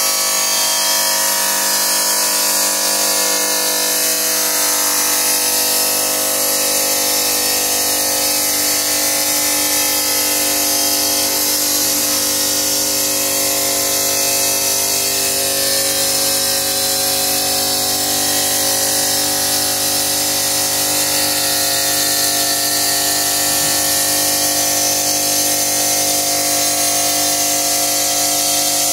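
A CNC five-axis stone bridge saw runs steadily, its diamond blade cutting along the edge of a stone slab. It makes a constant whine with a hiss over it, and a deeper rumble comes in about seven seconds in.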